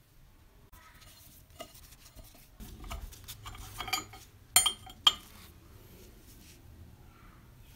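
Rusty cast-iron meat grinder parts being handled during disassembly: the threaded clamp screw is turned and scrapes, with light metal clinks, then two sharp metal clicks a little past halfway, the loudest sounds.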